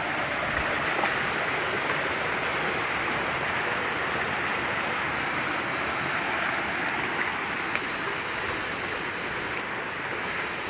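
Water rushing steadily through a flooded irrigation channel.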